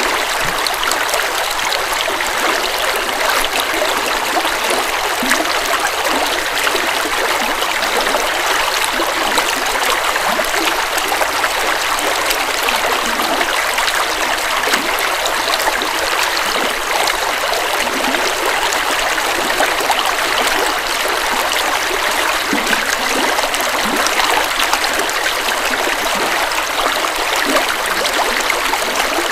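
A river flowing steadily over rocks, a constant rushing and trickling of water.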